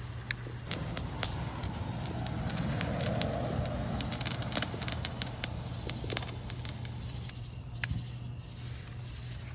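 Small ground fountain firework spraying sparks with a hiss and many sharp crackles. The hiss is strongest a couple of seconds in, and the crackles thin out near the end as it dies down.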